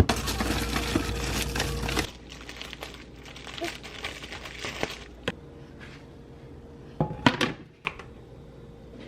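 Crinkling packaging, loudest for the first two seconds, then scattered clicks and knocks as things are handled, with a few sharp louder clicks about seven seconds in.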